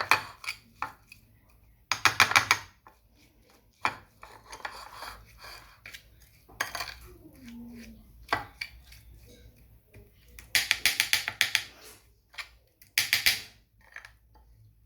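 A spoon clinking and scraping against a bowl in quick runs of strokes while stirring grated white turnip with sugar and honey. The longest run of clinks comes about two-thirds of the way through.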